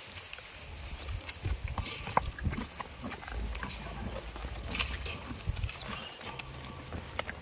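Goats moving about: scattered short knocks and clicks over a low rumble.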